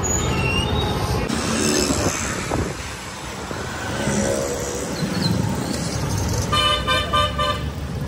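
Town road traffic with engine rumble, and a vehicle horn sounding a quick run of short beeps about three-quarters of the way through.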